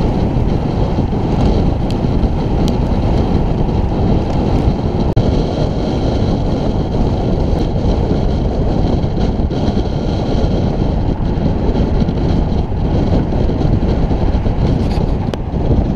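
Steady wind rush buffeting the microphone of a camera on a moving road bike, with a few faint clicks.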